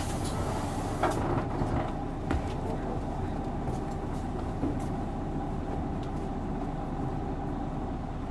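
Isuzu Erga city bus's six-cylinder diesel engine idling steadily, heard from inside the passenger cabin, with a few light knocks.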